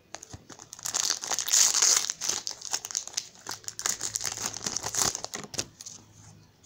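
A Pokémon TCG Sun & Moon Crimson Invasion booster pack's foil wrapper being torn open by hand: a dense run of crinkling and tearing, loudest about a second and a half in, thinning out near the end.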